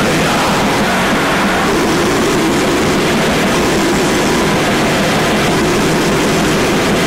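Harsh, lo-fi bestial black metal/noise recording: a dense, unbroken wall of heavily distorted noise at a steady level.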